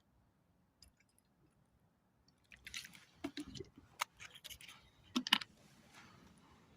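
Spoon clinking and scraping in a camp cooking pot of soup, with wet squishing and sharp clicks, starting about two and a half seconds in and stopping near the end.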